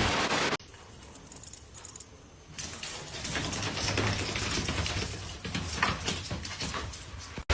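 Rapid, irregular clicking and tapping, starting about two and a half seconds in after a quiet stretch and running on until just before the end.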